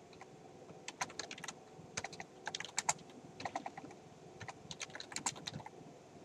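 Typing on a computer keyboard: short runs of quick key clicks with brief pauses between them.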